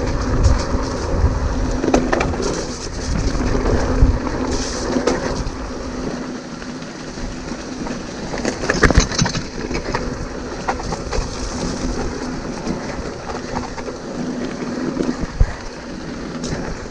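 Hardtail mountain bike riding fast down a dirt trail: a steady rumble from the tyres, with frequent sharp knocks and rattles as the bike jolts over bumps, picked up by a microphone mounted on the bike.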